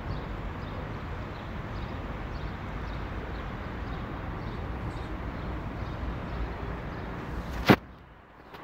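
Outdoor city background noise: a steady, rumbling hiss of the open air and distant traffic. Near the end there is one sharp click, and after it the sound is quieter.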